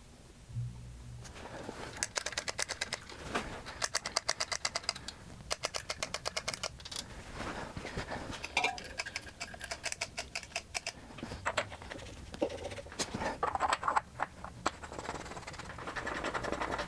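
Runs of rapid small metallic clicks and rattles as threaded inspection caps with new washers are handled and screwed onto the cylinder heads of a Vincent V-twin engine.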